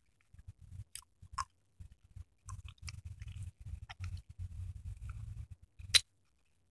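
Close mouth sounds of a hard lemon candy, a VC-3000 vitamin C throat drop, being sucked and chewed, with scattered clicks. The loudest is a sharp click about six seconds in.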